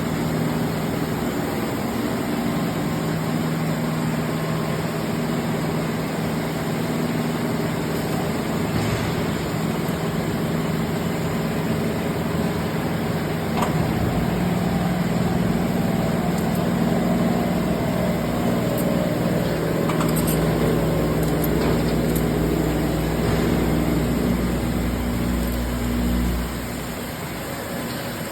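Blanchard #22D-42 vertical spindle rotary surface grinder running with a steady mechanical hum. About halfway through there is a click and the sound grows a little louder, with a faint tone slowly falling in pitch. Near the end the deepest rumble stops and the sound drops a step quieter.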